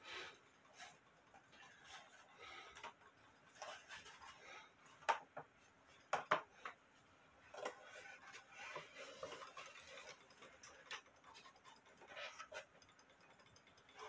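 Wooden drop-dial clock case being handled and turned: scattered faint knocks, clicks and rubbing on wood, with a few sharper knocks about five and six seconds in.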